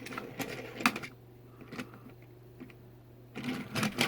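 Light clicks and taps of plastic Plarail toy train tenders being handled, getting busier about three and a half seconds in, over a faint steady low hum.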